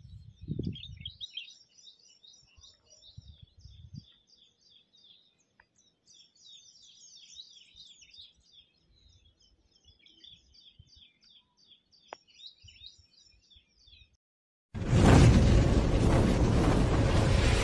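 Small birds chirping and twittering in quick runs of short calls, with a few faint low bumps. About fifteen seconds in, a loud, noisy logo sound effect with music cuts in suddenly and drowns everything out.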